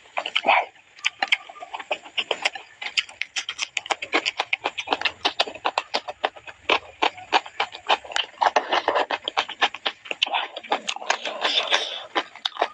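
Close-up eating sounds: rapid, irregular wet smacks and clicks of chewing and lip-smacking on grilled chicken.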